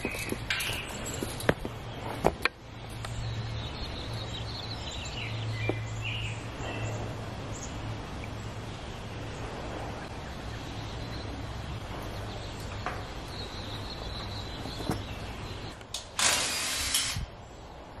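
Outdoor background noise with a steady low hum and a few short high chirps. There are sharp knocks in the first couple of seconds and a loud hissing burst about a second long near the end.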